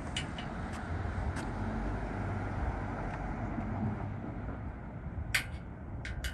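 Car driving: a steady low rumble of engine and road noise, with a few short sharp clicks, the loudest about five seconds in.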